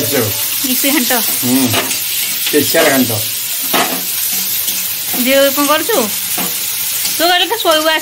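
Sliced onions sizzling in hot oil in a wok while a steel spatula stirs and scrapes them around the pan. A voice is heard briefly twice in the second half.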